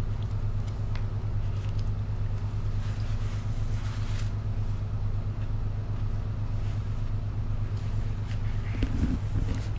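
Steady low motor hum that runs without a break, with faint small clicks and a couple of low bumps about nine seconds in.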